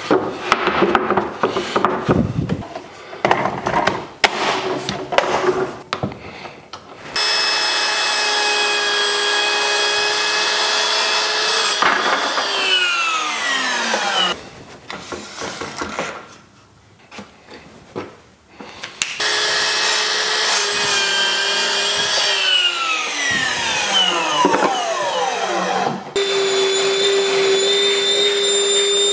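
A Ryobi sliding miter saw makes two cuts through 1x4 strapping, each time after knocks of the board being set in place. Each time the motor runs at full speed through the cut, then winds down with a falling whine when released. Near the end a Ryobi shop vacuum starts up with a steady hum.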